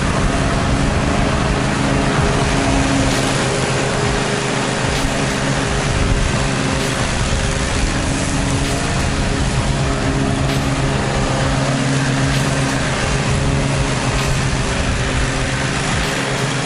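Gravely zero-turn riding mower's engine running steadily under load while mowing, a constant hum.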